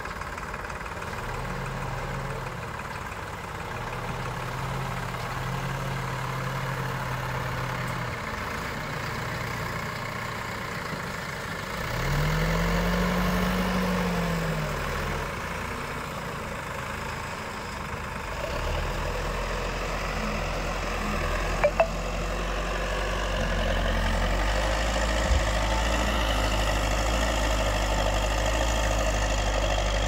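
Diesel engines of a JCB 3DX backhoe loader and a tractor running, with an engine revving up and back down about twelve seconds in and running louder in the second half. Two sharp knocks near the middle.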